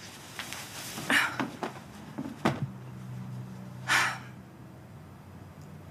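Clothing rustling as a top is pulled off, with a short sharp click, then a brief breathy puff of noise about four seconds in, over a faint low steady hum.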